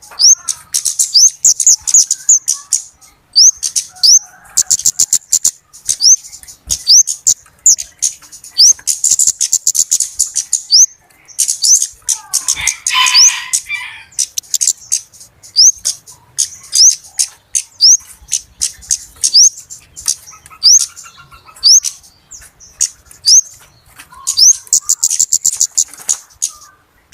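Flowerpeckers calling busily: a rapid, continuous string of high-pitched sharp ticks and short rising notes, with a lower, busier burst of chatter about halfway through.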